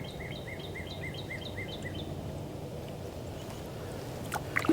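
Northern cardinal singing a rapid run of repeated arched whistled notes, about five a second, that stops about two seconds in. A steady low hum of distant road noise runs underneath, and a couple of sharp knocks come near the end.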